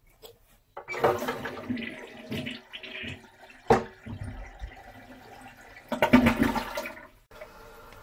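Toilet flushing, water rushing through the cistern and bowl in surges, with a single sharp click a little past the middle; the water supply to the cistern has just been turned on.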